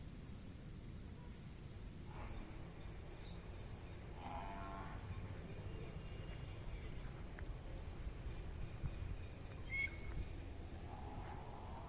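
Faint outdoor background: a low rumble with short, high bird chirps repeating every second or so, a brief louder call about four seconds in, and a steady faint high whine.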